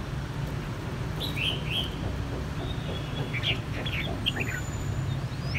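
Caged red-whiskered bulbuls giving short chirping calls, two bursts of quick notes, about a second in and again past three seconds, some sliding down in pitch. They are the challenge calls of bulbuls matched against each other. A steady low hum runs beneath.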